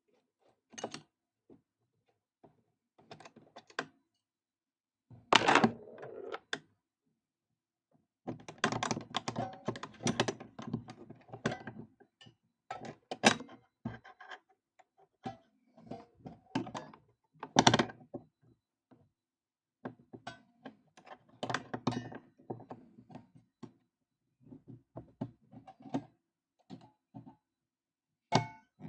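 Metal parts and hand tools clinking, tapping and knocking as a vintage PFAFF industrial shoe sewing machine is taken apart, in irregular clusters of clicks with short pauses. The loudest knocks come about five and a half and seventeen and a half seconds in.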